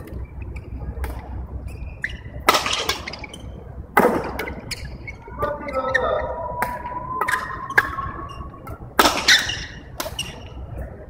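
Badminton rally: rackets striking the shuttlecock again and again, sharp cracks with three much louder strikes that echo in the hall, about two and a half, four and nine seconds in.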